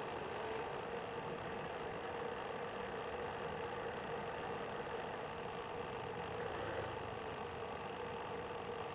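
Electric drive of an RC model boat, a 775 DC motor, running steadily under way and heard from on board: a constant motor whine over a steady hiss.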